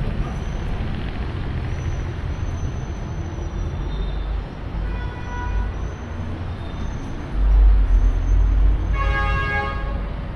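Street traffic rumbling steadily, swelling louder for a couple of seconds, with a vehicle horn tooting briefly near the end.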